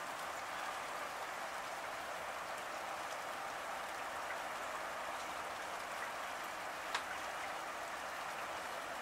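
Steady rain falling, an even hiss flecked with the small ticks of single drops, and one sharper, louder drop tick about seven seconds in.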